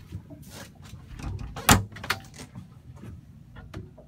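Wooden cabinet door of a hanging locker being opened: one sharp latch click or knock a little before halfway, with a few lighter clicks around it.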